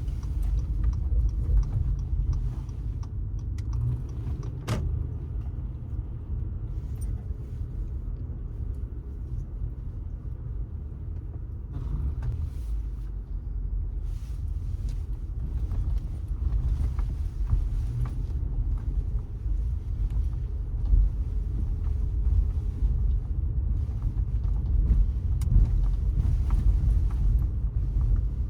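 Car being driven on city streets: a steady low rumble of engine and road, with scattered light knocks and one sharp click about five seconds in.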